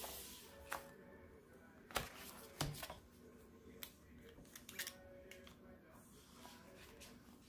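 Faint handling sounds: a leather-covered planner being opened and its paper flipped, then a few light, sharp clicks and taps as a fountain pen is handled over it.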